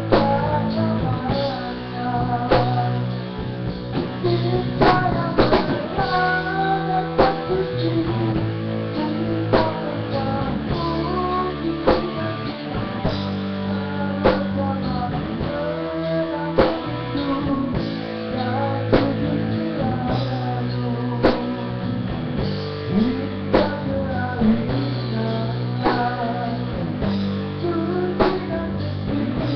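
A band playing a song, with guitar and a bass line over a steady drum beat.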